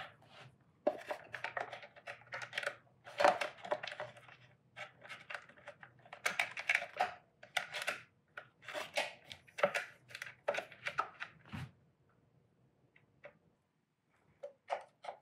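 Irregular clicks, taps and light scrapes of an Allen key and small metal parts being handled during hands-on assembly. They stop for a few seconds near the end, then a few more clicks follow.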